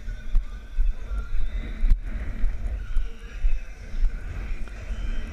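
A horse cantering under its rider, its hoofbeats coming as pulses about twice a second, heard over a heavy wind rumble on the microphone of a rider-mounted action camera.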